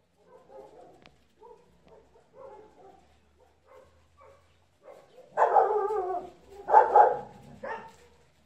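Dogs vocalizing: faint short grumbles and whines, then about five seconds in a loud, drawn-out bark with a wavering pitch, followed by two shorter barks.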